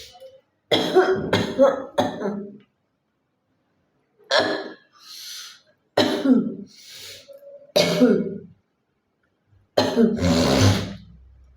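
A woman coughing and clearing her throat: a quick run of several coughs about a second in, then single coughs and throat-clearings a second or two apart, the last the longest and heaviest.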